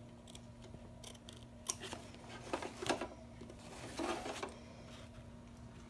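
Duckbill appliqué scissors snipping cotton fabric in a handful of short, separate cuts, trimming the appliqué fabric close to the embroidery stitch line.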